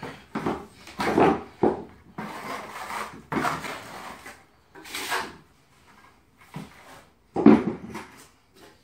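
Leveling compound being scraped out of a plastic bucket with a trowel and tipped onto the floor: irregular scrapes and knocks, with the loudest knock near the end.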